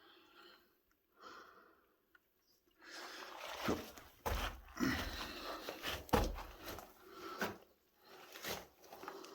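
A person breathing, then scrambling over rock: scuffing and scraping footsteps with a few heavy knocks, the loudest about a second and a half in and near the middle.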